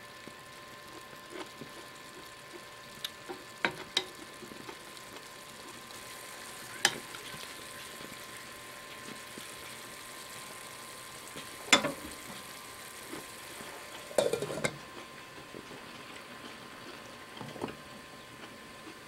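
Green beans in soy sauce and chicken broth sizzling steadily in a pan as they cook, with a few sharp clinks of a utensil against the pan as they are stirred.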